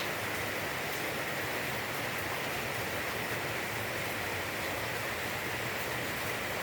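Steady rain falling as an even hiss, with a few faint drop ticks.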